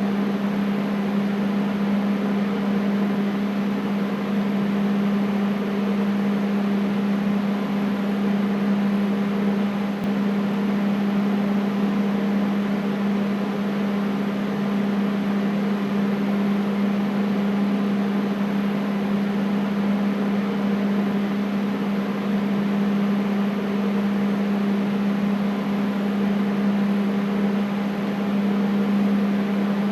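Air conditioner running steadily: an even hum with one strong low tone and fainter tones above it, over a constant rush of air.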